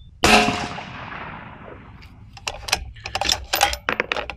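A single unsuppressed shot from a 6BR bolt-action rifle fitted with a muzzle brake, with a long echoing tail of about two seconds. Then a quick run of sharp metallic clicks as the bolt is worked to eject the case and chamber the next round.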